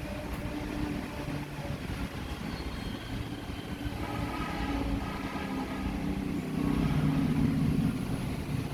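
Road traffic: vehicle engines running and passing, swelling about four seconds in and loudest near the end.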